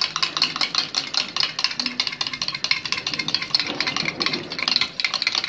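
A steel spoon beating a raw egg with mutton gravy in a stainless steel tumbler: rapid, steady clinking of spoon against the metal cup, many strokes a second.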